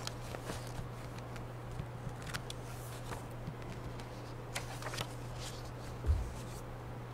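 Quiet church room tone: a steady low electrical hum with a few scattered soft clicks and rustles, and a low thump about six seconds in.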